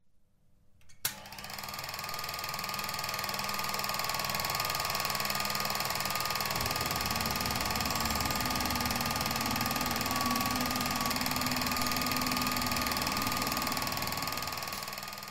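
Film projector running, a fast, steady mechanical clatter that starts with a click about a second in and fades away near the end.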